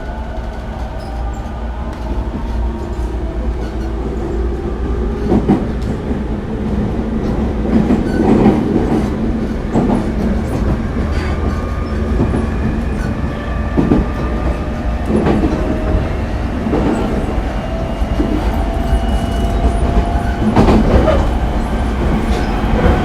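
Traction motor whine of a JR 209 series 500 electric train, heard from inside the motor car while under way. Several motor tones climb slowly in pitch as the train gathers speed. Beneath them runs a steady low rumble of wheels on rail, with scattered clacks over rail joints.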